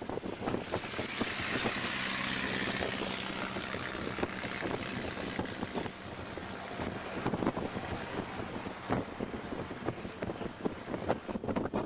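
Wind rushing over the microphone, mixed with the engine and road noise of an open Ford Model T at highway speed. There is a swell of rushing hiss about two seconds in, and small rattles and knocks all through.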